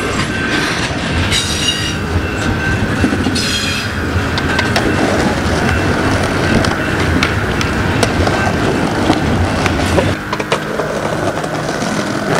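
Double-stack container freight train passing close by: a steady rumble with many short clicks from the wheels and two brief high squeals in the first few seconds. The low rumble cuts off about ten seconds in.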